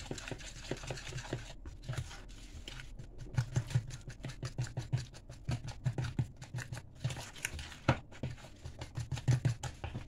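A spoon stirring thick pancake batter of flour and matsoni in a plastic bowl: quick, irregular scraping and clicking against the bowl with soft low thuds, busiest in the second half.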